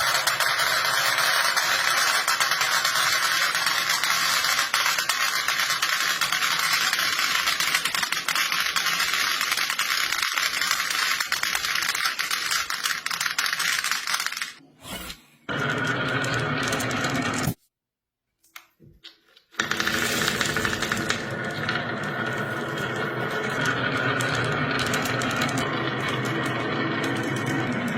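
Marbles and plastic toy parts rattling and clattering on a block-built marble run track, a dense continuous clatter broken by two brief silences a little past halfway.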